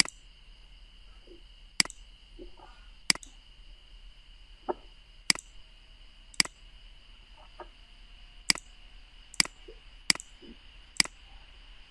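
Computer mouse clicking about ten times, single sharp clicks at irregular intervals of one to two seconds, over a faint steady high-pitched whine.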